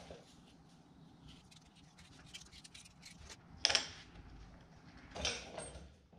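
Hand-tool work on a cast timing cover: faint scraping and small metal ticks, then a sharp metallic clatter a little past halfway, followed about a second and a half later by a duller knock.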